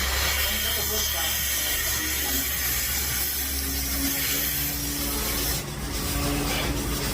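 Dairy milking machinery running in the milking shed: a steady hiss over a constant low hum, with a steady low tone joining about three seconds in.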